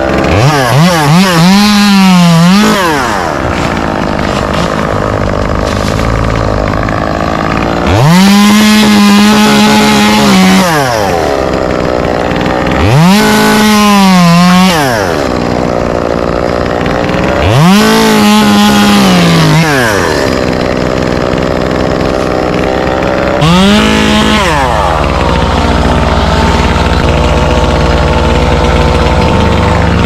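Two-stroke chainsaw revving to full throttle in five bursts of one to three seconds, each climbing quickly, holding high and falling back to a lower running speed between. A low steady engine rumble runs on through the last part.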